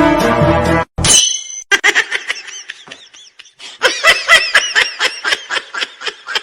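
Music cuts off abruptly about a second in, followed by a short sharp noise; then a person laughs in a quick run of short, high-pitched bursts, hardest in the second half.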